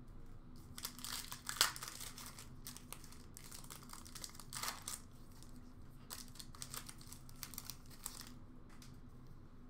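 A 2013-14 Upper Deck Series 1 hockey card pack being torn open by hand, its wrapper crinkling in several short bursts, the sharpest about one and a half seconds in.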